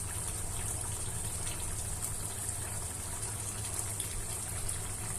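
Chicken curry gravy simmering in an open pot on the stove: a steady bubbling hiss with a low rumble and faint scattered pops.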